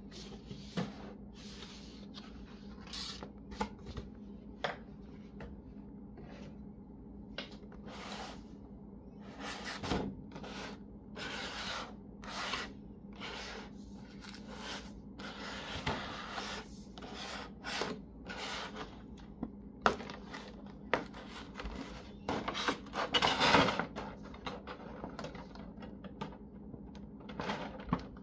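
Clear plastic blister packaging and wrapping crinkling and rustling under the hands in irregular bursts, with a longer stretch of crinkling near the end.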